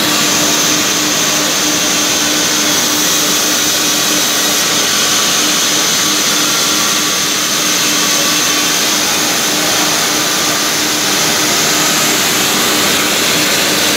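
Log-sawing machine running steadily: its electric motors and spinning saw blades give a constant hum with a high whine over it.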